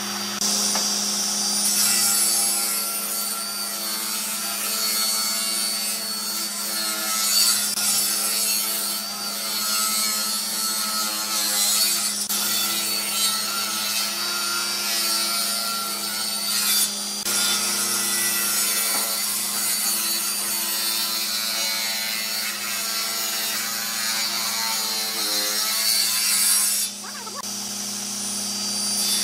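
Table saw running and cutting through blocks of hardwood: a steady motor hum under the blade's rasping cutting noise. The sound changes abruptly a few times as one pass gives way to the next.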